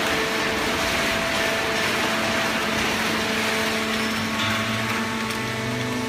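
Fully automatic horizontal hydraulic waste-paper baler running, with a steady mechanical hiss and several held hum tones. A deeper hum joins about four and a half seconds in.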